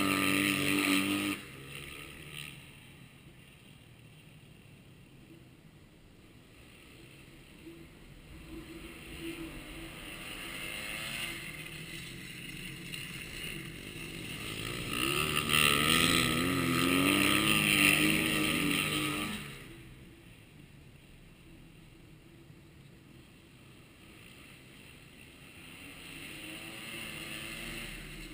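Kawasaki dirt-track motorcycles lapping an oval, their engine note rising and falling as they come round. A loud pass at the start drops away sharply. The sound builds to a second loud pass about halfway through that cuts off abruptly, then builds again near the end.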